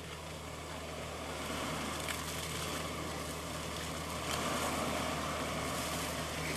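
Nissan Patrol 4WD engine running as it crawls along a muddy track, a steady low hum that grows slightly louder a second or two in as the vehicle nears, under a steady rushing background noise.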